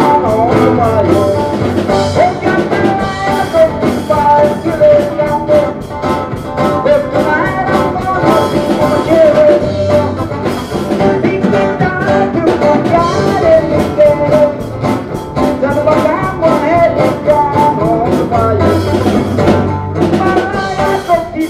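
Band music: guitar and drums playing along with a singing voice.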